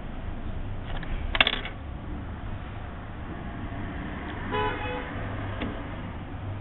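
Hand-tool work on a laptop: a sharp click about a second and a half in as the top case's cable connector is pried up with a metal tool, then a short high-pitched squeak a little after the middle, over a low steady hum.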